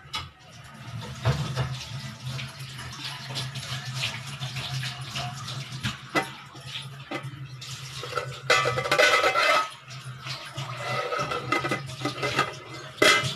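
Lidded steel pot of curry heating on a gas burner: a steady low hum under a constant bubbling crackle from the pot as it works up to a boil. A few metal clinks as a hand touches the lid, the sharpest near the end.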